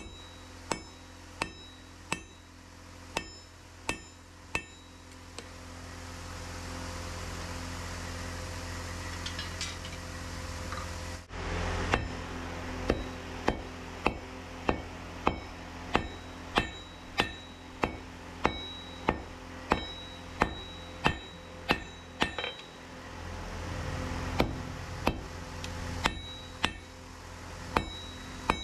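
Hand hammer forging red-hot steel on an anvil, each strike ringing briefly. A short run of strikes, a pause of several seconds, then steady blows about one and a half a second. A steady low hum runs underneath.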